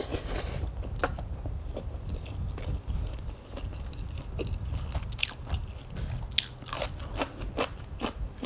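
Close-up eating sounds: a slurp as a mouthful of rice noodles goes in at the start, then chewing with crisp crunches of raw vegetables, the crunches coming thick and sharp in the second half.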